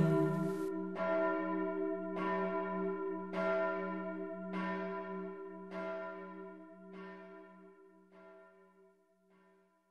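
A church bell tolling about once a second, eight strokes that grow steadily fainter and die away, its low hum ringing on between strokes. The tail of the preceding music stops less than a second in.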